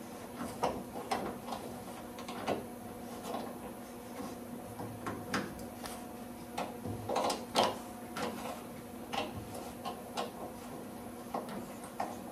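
Irregular small metallic clicks and scrapes of a thread tap and T-handle tap wrench being fitted and turned in a steel nut welded into a car's fender arch, re-cutting its threads. The sharpest clicks bunch together just past the middle.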